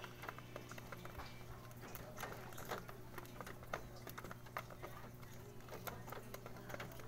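Pigeons pecking grain from a plastic feeder tray: irregular, quick taps and clicks.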